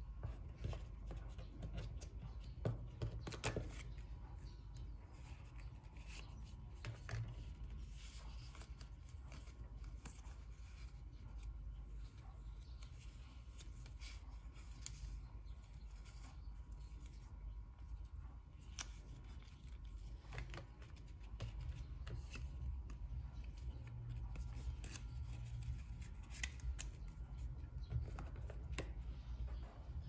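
Hands handling iPhone 11 packaging: the coiled charging cable, the paper inserts and the cardboard box tray. Faint paper rustles and scattered small taps and clicks, over a low steady hum.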